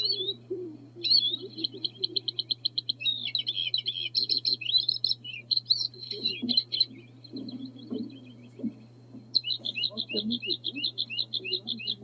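Bluethroat singing: varied phrases built from fast runs of repeated notes mixed with jumbled twittering, with a short break about 8 to 9 seconds in before another quick series of repeated notes. A faint steady low hum runs underneath.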